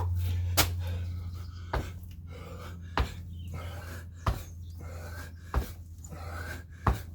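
Six thuds of feet landing from repeated jump squats, about one every 1.3 seconds, with heavy panting between them. A steady low hum runs underneath, strongest at the start.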